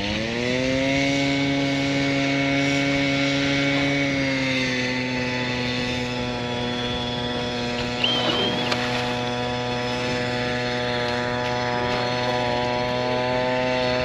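Small gasoline engine revving up at the start, then running at a steady high speed, its pitch dropping slightly about four seconds in and holding from there.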